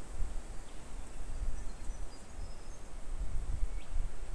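Wind gusting on the microphone, a rumble that rises and falls, with a few faint high chirps about halfway through.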